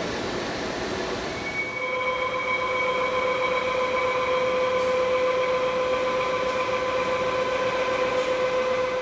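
CNC milling machine's tapered end mill cutting along a metal compressor impeller blade: a steady high whine sets in about a second and a half in and holds, over continuous machine noise.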